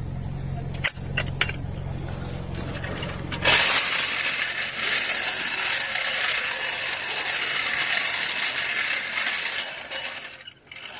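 A steady low hum with a few sharp clicks, then a loud, dense mechanical rattle that starts suddenly about three and a half seconds in and runs for about six seconds: a wrench working a wheel's lug nuts during a tire change.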